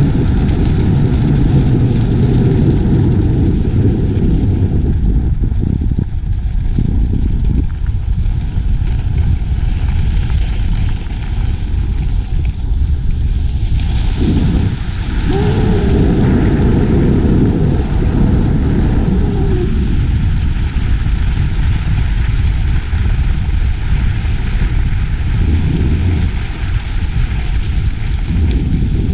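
Wind rushing over a GoPro action camera's microphone at skiing speed, a loud steady low rumble, with skis scraping over the snow. About halfway through, a brighter hissing scrape of the ski edges rises for several seconds, then eases.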